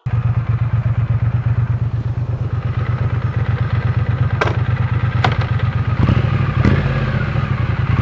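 Triumph Speed Twin 900's parallel-twin engine idling with a steady low pulse. Two sharp clicks come midway, and near the end the engine note changes as the bike pulls away.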